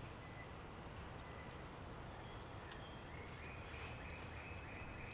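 Faint outdoor background noise with scattered faint ticks, and a faint steady high whine that comes in about three seconds in.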